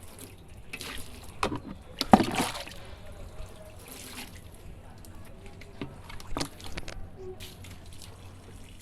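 Water splashed onto the condenser coil of a split air conditioner's outdoor unit in several uneven splashes, trickling and dripping off in between as it rinses the brushed-loose dust out of the coil.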